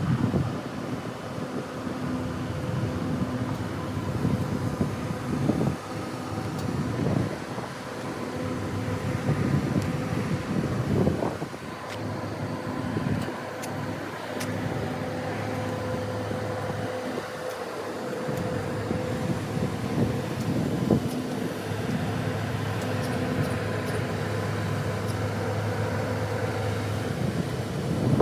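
Diesel train engine running at a steady pitch, a low hum with a few fixed overtones.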